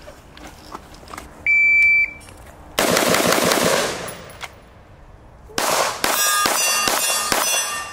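A shot-timer beep starts the drill, then a quick string of rifle shots. After a short pause for the switch to pistol, a fast string of handgun shots follows, with steel targets ringing from the hits.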